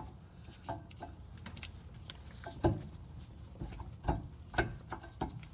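Scattered light clicks and taps, about eight at uneven intervals, of a brake pad being worked against a rear brake caliper on a 2009 Cadillac CTS-V. The caliper pistons are not pushed back far enough, so the pad won't slide in.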